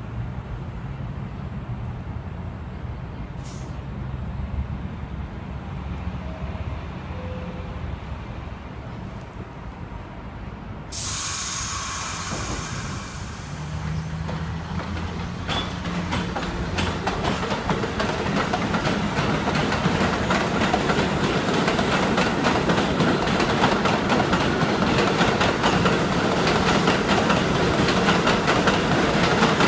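New York subway 7 train (R62A cars) humming at a standstill, then a sudden loud hiss of air about eleven seconds in, fading within a couple of seconds. The train then gets under way, its wheels clattering over the elevated track ever louder.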